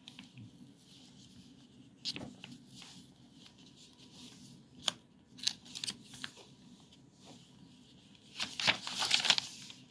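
Pages of a bound paper journal being handled and turned: scattered short paper rustles and taps, with a longer, louder rustle near the end.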